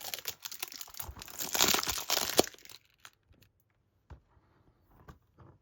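Cardboard slipcover being slid off a plastic Blu-ray keep case: a rustling, scraping noise, loudest about two seconds in, which stops before the halfway mark and gives way to a few light handling taps on the case.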